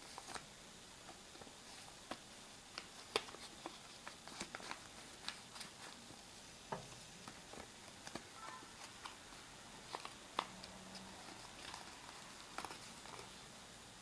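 Faint handling of a folded sheet of origami paper: irregular small crinkles and clicks as fingers press and shape the creased paper.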